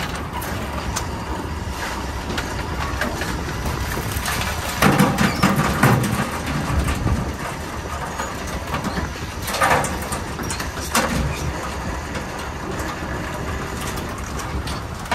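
Workboat engine running steadily under the rattle and knock of wire crab pots being handled and shaken out, with the loudest knocks about five to six seconds in and again near ten seconds.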